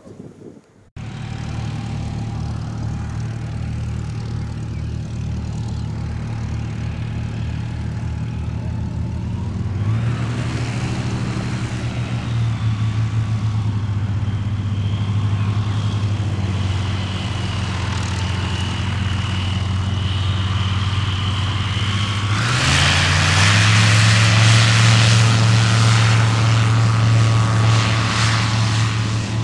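ICP Savannah S ultralight's propeller engine running. It starts abruptly about a second in at a low, steady idle, steps up in speed about a third of the way through, then revs up quickly about three quarters in to its loudest, highest pitch for the takeoff roll.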